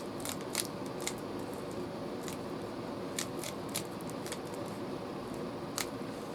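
Rubik's Cube layers being twisted by hand, giving sharp plastic clicks at irregular intervals, over a steady low background hum.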